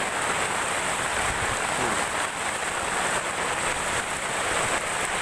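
Heavy tropical downpour: a steady, dense hiss of rain.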